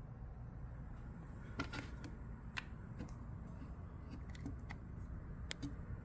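A few light clicks and taps from cables and charging gear being handled, over a low steady hum.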